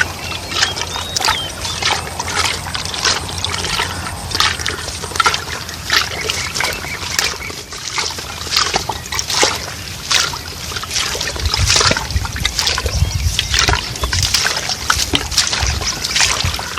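Shallow water sloshing, trickling and splashing in irregular bursts as bamboo tube eel traps are handled in the water. A low rumble joins in during the second half.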